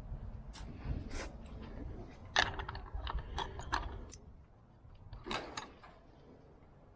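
A run of irregular light clicks and rattles, something small being handled, over low rumbling handling noise.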